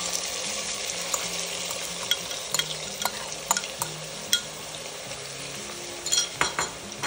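Finely chopped onions sizzling as they fry in hot oil with cumin seeds in a pot, a steady hiss. Scattered sharp clicks and taps run through it as the last onions are scraped and tapped out of the bowl.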